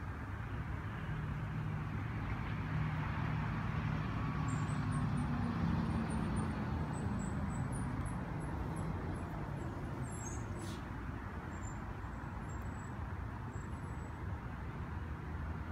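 Road traffic rumbling steadily, swelling between about two and eight seconds in as a vehicle passes, with faint short high chirps over it from about four seconds in.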